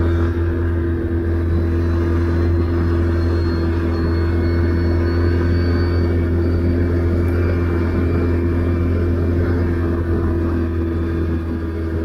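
Can-Am Outlander 570 ATV's V-twin engine running under way at a steady, even speed, a loud constant drone.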